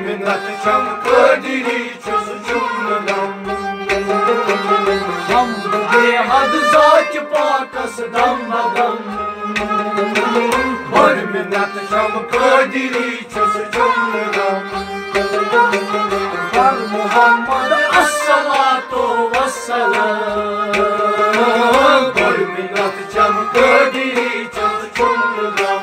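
Kashmiri Sufi music: sarangi, rabab and harmonium playing a winding melody over a steady hand-drum rhythm played on a pot-shaped drum.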